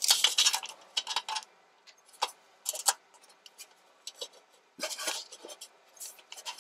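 Metal hand tools clinking and clattering as sockets and wrenches are handled. There is a run of clatter at the start, then scattered single clicks and another short clatter about five seconds in.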